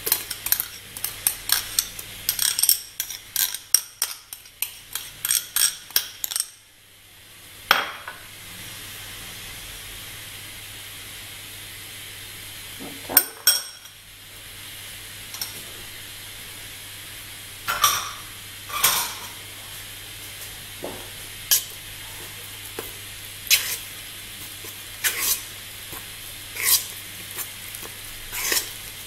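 Rapid clinks and scrapes of a bowl and utensil against a stainless steel mixing bowl as thick tangzhong paste is emptied into it, for about the first six seconds. Then a steady faint hiss with a single knock or clink every couple of seconds as ingredients go into the metal bowl and are mixed by hand.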